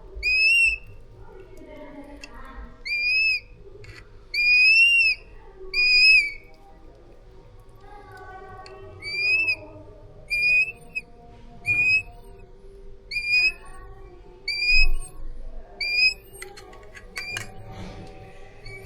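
Changeable hawk-eagle chick calling: about ten loud, high whistled cries, each one rising and then dropping slightly, spaced one to three seconds apart. A few light clicks are heard near the end.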